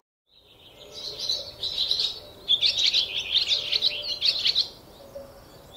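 Small birds chirping, a dense run of quick high twittering notes that fades in, carries on for a few seconds and fades away near the end.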